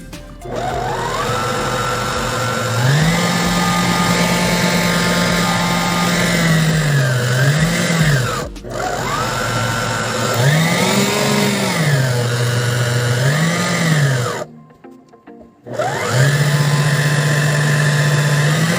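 Electric stand mixer motor whipping cream, its whine gliding up and down in pitch as the speed changes. It cuts out briefly about halfway through, stops for a second or two near the end, then starts again.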